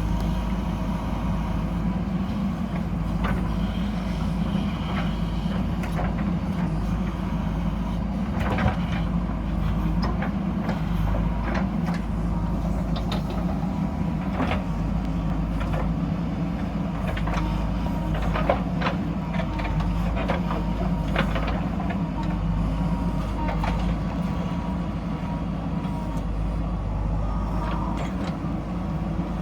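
JCB backhoe loader's diesel engine running steadily, with scattered knocks and clanks, most of them from about eight seconds in to about twenty.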